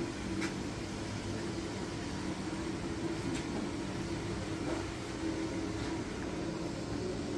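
Steady low mechanical hum with a few faint clicks.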